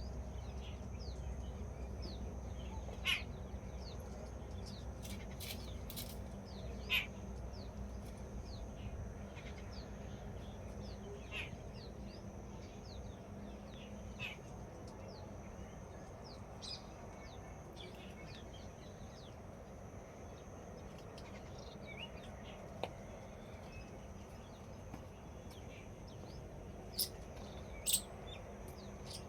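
Birds chirping and calling: many short, high chirps throughout, with a few louder, harsher calls about three and seven seconds in and a couple of sharp clicks near the end.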